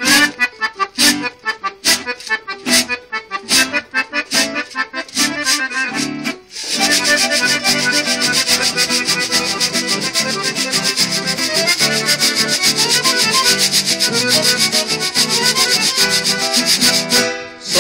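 Acoustic guitars playing an instrumental introduction to a Paraguayan folk song. The first six seconds or so are separate strummed chords with short pauses. About seven seconds in, a steady fast strumming rhythm begins, with an even, scratchy rhythm on top, and it breaks off briefly just before the singing.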